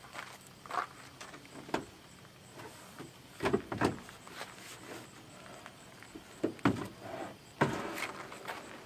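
Plastic kayak hull bumping and scraping along a truck rack's metal crossbars as it is slid off: irregular knocks and rubs, the loudest about halfway through and near the end, the last drawing out into a longer scrape.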